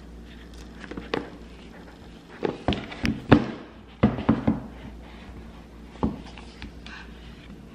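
Light taps, knocks and fingernail clicks of a cardboard iPhone box being handled and set on a table, with the densest, loudest run of knocks a little before halfway.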